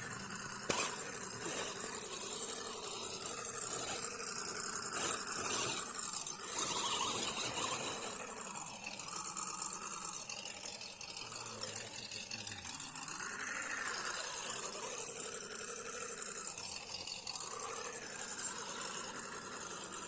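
Electric motor and gearbox of a 1:10 scale RC crawler whining as it drives, the pitch and level rising and falling with the throttle.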